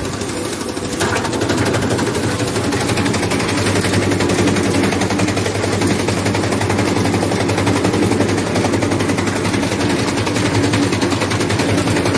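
Motor-driven chaff cutter chopping green fodder: the blades make a rapid, steady chatter over a constant motor hum. It gets louder about a second in as the stalks are fed in.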